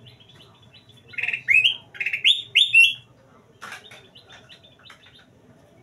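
Caged kutilang emas, a bulbul, singing: one loud phrase of about five rising, whistled notes, with soft chattering before and after it.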